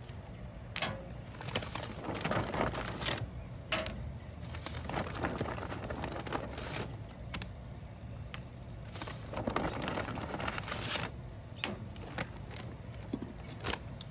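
Scattered sharp clicks and knocks with rustling, and doves cooing in the background.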